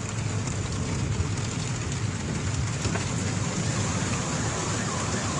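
Heavy downpour: a steady hiss of rain with a low rumble underneath.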